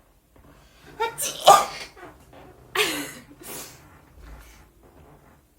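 A young woman sneezing, several sharp sneezes in quick succession, the loudest about a second and a half in.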